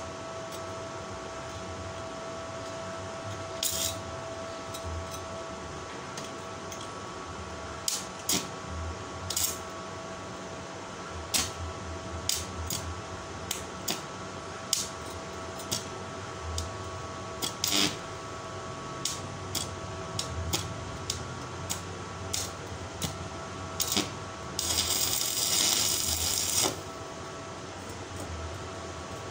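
Stick (arc) welding on thin sheet steel: many brief sputtering crackles from arc strikes and short tack welds, then about 25 seconds in a longer crackling run of about two seconds, the loudest part. A steady faint hum lies under it.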